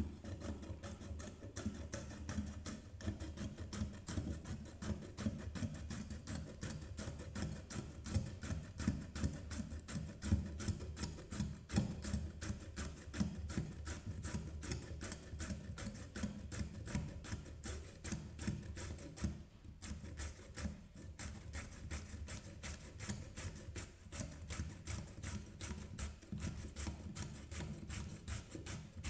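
Carrot being rubbed quickly up and down a stainless steel shredder blade, a steady rasping rhythm of strokes with the grater's frame tapping on a wooden table. There is a brief pause about two-thirds through before the strokes resume.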